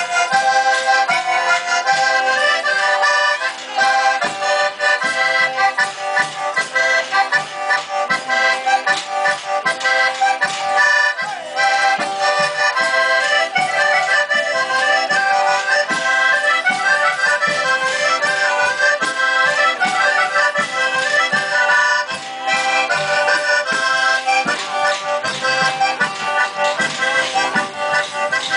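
Accordion playing a lively ballarella, a southern Italian folk dance tune, over a steady beat.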